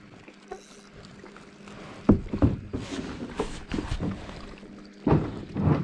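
Knocks and splashes from plastic kayaks and paddles moving on the water. It is fairly quiet at first, then from about two seconds in comes an irregular run of sharp knocks and splashes against the hulls, the loudest near the end.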